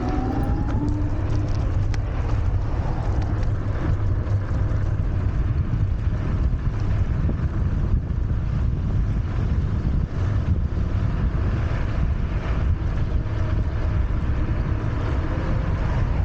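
Wind buffeting the camera microphone on a Wolf Warrior 11+ electric scooter ridden at speed, a steady low rumble of wind and tyre noise. At the start the hub motors' whine rises in pitch as the scooter accelerates, and light clicks and rattles come through now and then.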